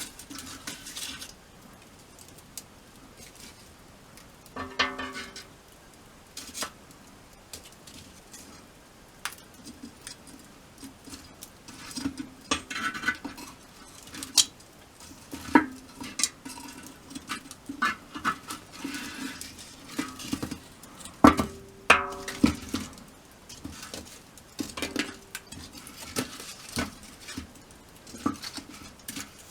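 Metal cookware and utensils clinking and knocking at irregular intervals, with a brief ringing tone twice.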